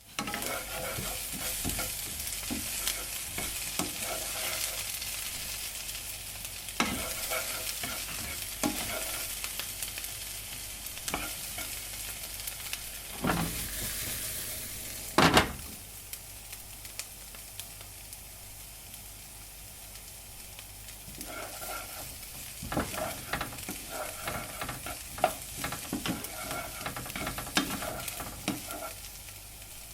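Food sizzling as it fries in a pan: a steady hiss with scattered crackles and utensil clicks from stirring. Two louder knocks come around the middle, and after them the sizzle eases, with a busier run of clicks near the end.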